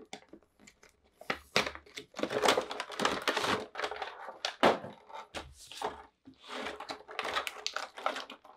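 Clear plastic blister packaging of an action figure crinkling and rustling as it is slid out of its cardboard box and handled, in irregular fits and starts that begin about a second and a half in, after a few light clicks.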